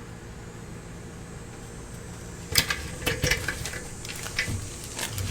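Small metal parts and tools clinking and tapping during reassembly of a motorcycle's rear axle and chain tensioner: a run of sharp clicks and clanks starting about halfway, over a steady low hum.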